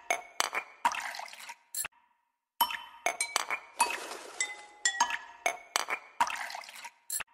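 Background music made of bright, glassy clinking chime strikes with ringing notes, playing a repeating phrase that breaks off into a brief silence about two seconds in.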